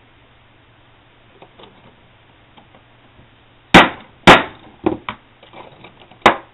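Feather chopper being knocked shut and struck to cut a feather: two loud, sharp knocks about half a second apart, a few lighter knocks, then one more sharp knock near the end as the hinged wooden lid is handled.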